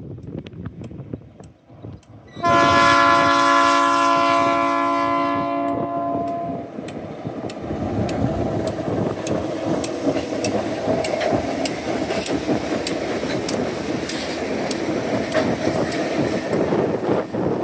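Diesel locomotives 2054 and 2053, TasRail 2050 class, sound a multi-note chord horn in one long blast of about four seconds: the warning for the level crossing. Then the lead locomotives' engines and wheels pass close, a steady heavy rumble with regular clicks from the wheels going over rail joints, about two a second.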